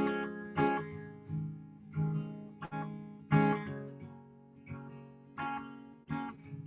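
Acoustic guitar strumming chords in an instrumental passage with no singing, each strum ringing out before the next.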